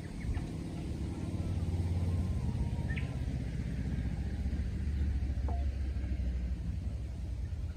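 A motor vehicle's engine running with a low, steady rumble, and a few short, sharp chirps over it.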